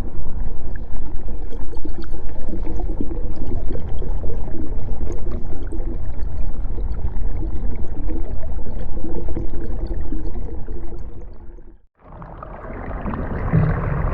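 Underwater sound effect: a dense, low rumbling and gurgling of water. It fades out about eleven seconds in, and after a brief silence a second similar underwater effect starts.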